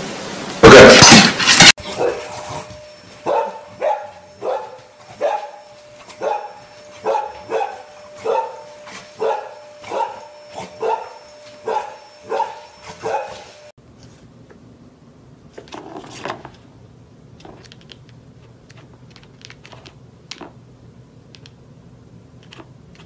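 A dog barks about a dozen times in a steady rhythm, a little under one bark a second, over a steady machine hum. A very loud burst of noise comes about a second in, and the barking ends in a quieter stretch of light clicks and clatter.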